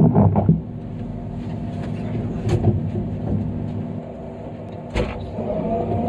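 John Deere 350D excavator's diesel engine running steadily, heard from inside the cab, with a few knocks and clunks near the start and a sharp click about five seconds in. After the click the engine note grows louder and climbs slightly, as if taking load.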